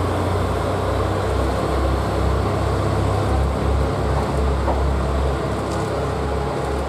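Diesel railcar engines make a steady low rumble as a JR Kyushu KiHa 185 diesel railcar pulls away from the platform.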